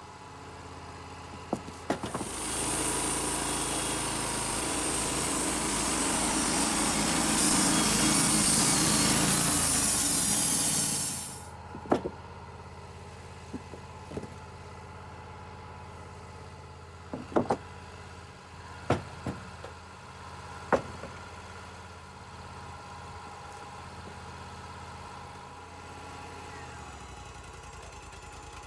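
Wood-Mizer LT35 hydraulic band sawmill running hard for about nine seconds, then dropping abruptly to a steady idle. A few sharp wooden knocks follow as sawn cedar boards are handled on the mill.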